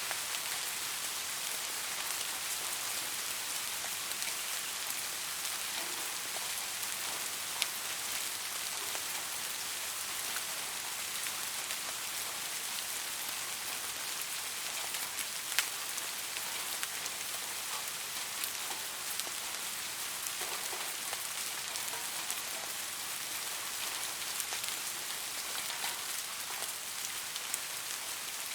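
Steady rain falling, an even hiss with individual drops ticking sharply here and there on a hard surface.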